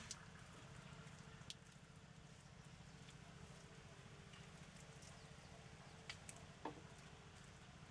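Faint, sparse handwork: a few soft taps and slaps as hands press wet mud against a wall of bamboo slats, two of them close together near the end, over a low steady hum.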